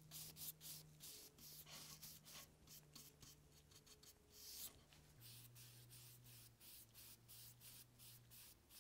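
Faint paintbrush strokes brushing a black coat onto a wooden baseball bat, short soft swishes repeating about two or three times a second.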